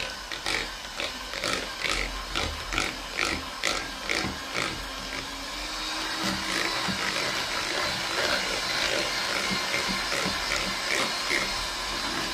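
Handheld electric mixer whisking thick, chilled pastry cream in a plastic bowl to loosen it smooth. The beaters knock against the bowl about twice a second for the first few seconds, then the mixer runs more steadily and a little louder.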